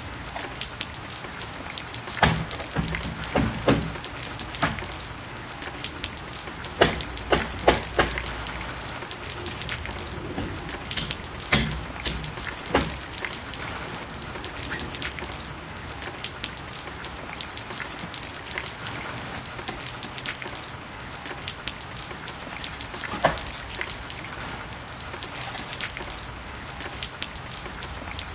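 Steady rain falling, with a hiss and many sharp drops striking a hard surface, the drops denser in the first half.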